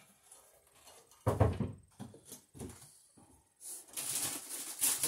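Wires being handled and twisted together in a bathroom exhaust fan's metal wiring box: a few light knocks, the loudest about a second in, then steady rustling near the end.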